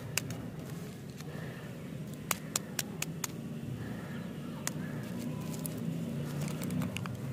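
Crinkly plastic lollipop wrapper handled in the fingers and starting to be picked open, giving scattered sharp crackles and clicks over a steady low hum.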